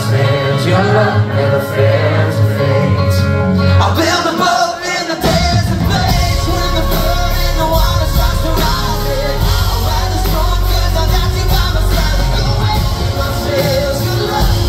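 Live pop-rock band with a male lead singer singing into a handheld microphone. About four seconds in the bass drops out briefly, then a heavier low end comes back in about five seconds in.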